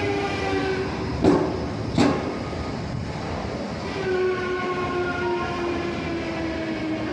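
JR 383 series electric train moving slowly along the platform, its motor whine a set of steady tones that sink slowly in pitch. Two sharp clacks come a little over a second in and again at about two seconds.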